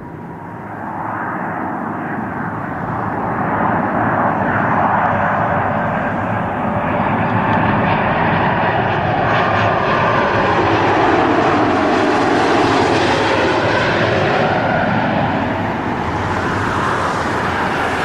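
Jet engines of an Airbus A330 airliner on final approach with gear down, passing low overhead: a steady jet noise that builds over the first few seconds, with a falling whine as the aircraft goes by.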